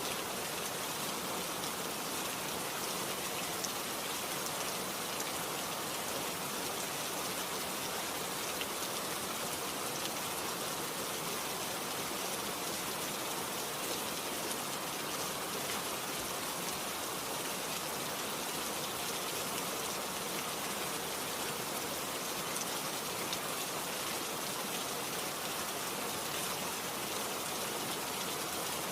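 Steady rainfall, an even hiss of many drops with scattered faint individual drop ticks.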